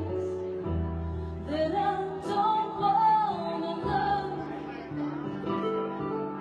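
A woman singing a ballad live into a microphone, holding long notes over sustained accompaniment chords that change about every three seconds.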